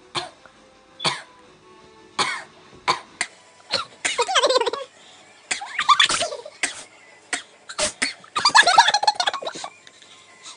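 People trying to force out sneezes: a run of short, sharp bursts of breath, with three longer, noisier outbursts from about four seconds in.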